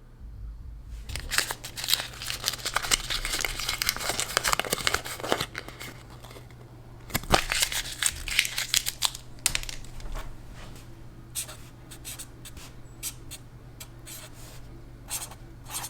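Irregular rustling and crinkling of material being handled, with many small clicks and scrapes over a steady low hum.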